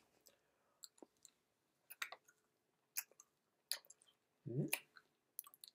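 Chewing Skittles candies in the mouth: faint, scattered wet clicks and smacks of chewy candy being worked between the teeth. A short voiced "mm"-like sound comes about three-quarters of the way through.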